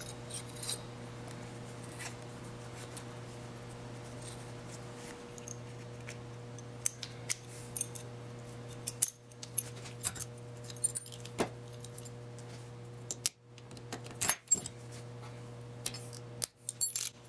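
Light metallic clicks and clinks, scattered and irregular, from small master cylinder parts being handled and fitted by hand, over a steady low hum.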